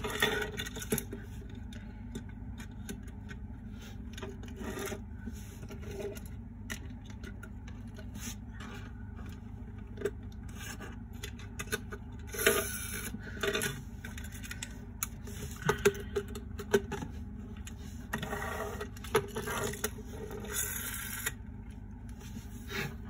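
Small diecast toy trucks handled and pushed across a tabletop: scattered scrapes, rubs and light clicks of small wheels and plastic-metal bodies, busier twice in the second half, over a steady low hum.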